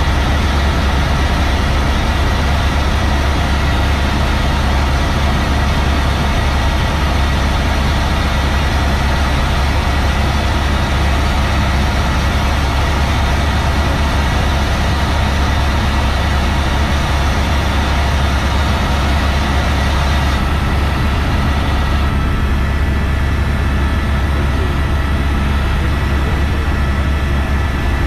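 Helicopter in flight, heard from inside the cabin: a loud, steady low drone of rotor and engine with faint steady high tones above it.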